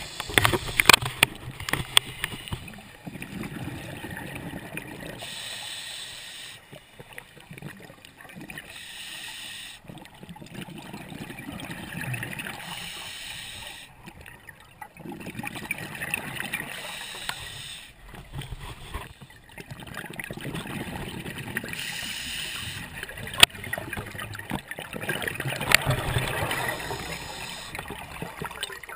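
Scuba diver breathing through a regulator underwater: a hissing inhale alternating with a low, bubbling exhale, repeating roughly every five seconds. A few sharp clicks stand out, the loudest near the start and at about three-quarters of the way through.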